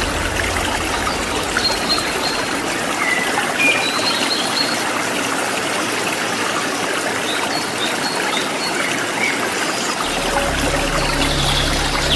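Running water flowing steadily, with a few short, high bird chirps over it. A low steady hum comes in near the end.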